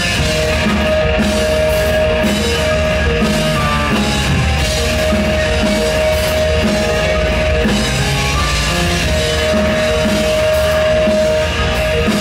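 Live rock band playing loudly: electric guitar, bass, keyboards and a drum kit with fast, busy drumming. A high sustained note is held for a second or more at a time, again and again.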